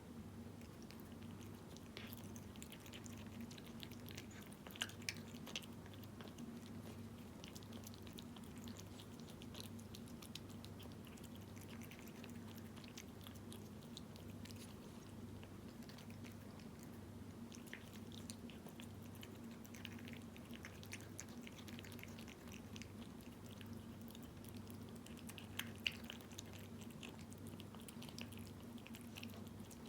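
A cat chewing and lapping wet chicken-in-jelly cat food (Felix), a scatter of soft, wet smacking clicks, over a steady low hum that pulses evenly.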